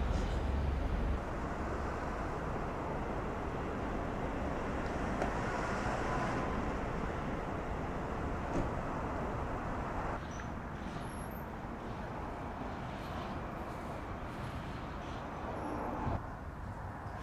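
Steady outdoor street ambience with a distant traffic hum. It shifts abruptly in level and tone about a second in, about ten seconds in and near the end.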